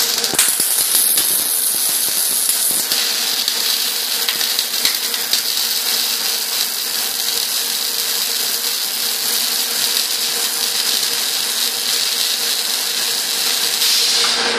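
Two CO2 MIG welding arcs crackling and spattering steadily as they weld the ends of a rotating idler conveyor roller; the crackle cuts off at the very end.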